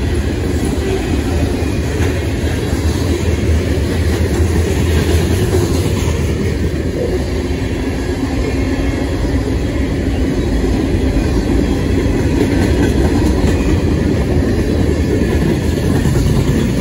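CSX freight train rolling past, with a steady, loud noise of wheels running on the rails.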